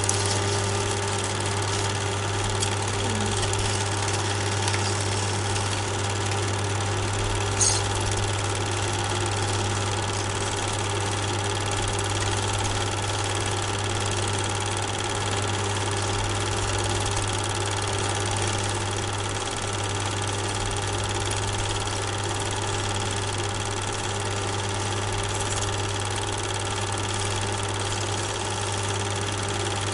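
A steady mechanical drone from a running motor or engine, with a low hum and several fixed tones that do not change, and one sharp tick about seven or eight seconds in.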